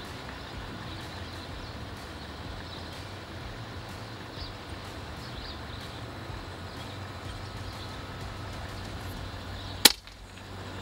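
Steady low background hum, then near the end a single sharp, short shot from an FX Crown MK2 PCP air rifle firing a .177 slug.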